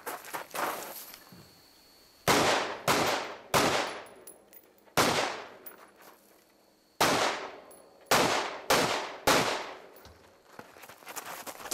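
Rifle fired about eight times at a timed match stage, each shot with an echoing tail: three quick shots a little over two seconds in, two single shots, then another quick string of three.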